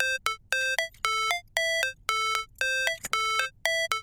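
Simple electronic melody of short, clean beeped notes, about four a second, with brief silences between them.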